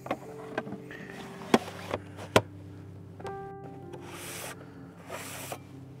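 Sharp clicks and knocks from hands working the back of a large format field camera, two of them loud, then two brief swishes. Ambient background music with long held tones plays under them.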